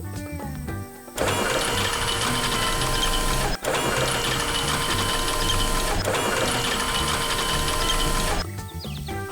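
Background music with a fast, busy mechanical-sounding rhythm, getting louder about a second in and dropping back shortly before the end.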